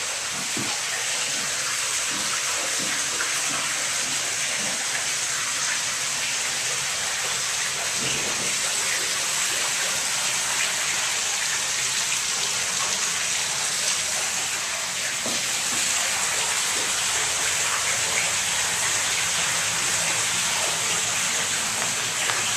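Water rushing and splashing steadily through a turning Archimedes screw hydro turbine.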